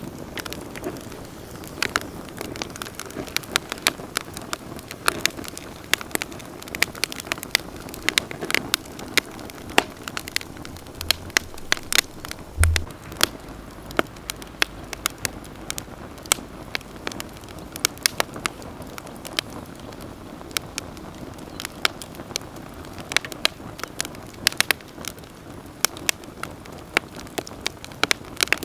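Campfire crackling, with frequent sharp, irregular pops over a low steady hiss of burning. There is one low thump about halfway through.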